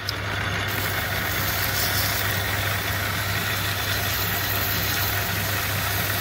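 Lathe motor and spindle running steadily with a low hum while emery cloth is held against the spinning aluminium spindle thread protector to polish it.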